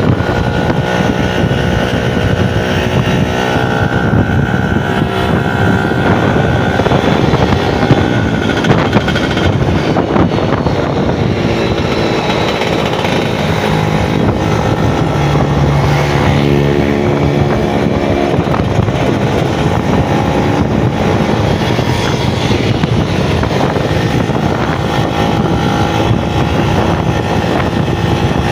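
Yamaha F1ZR's two-stroke single-cylinder engine running, its carburetor set for a growling 'ngorok' intake note and a popping, crackly 'prepet' exhaust. The sound is loud and continuous, and the engine note shifts now and then.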